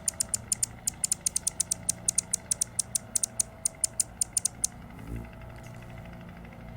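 Bird chirping as a rapid run of short, high, clicking chip notes, about eight to ten a second, that stops a little past halfway. A single low thump follows about five seconds in.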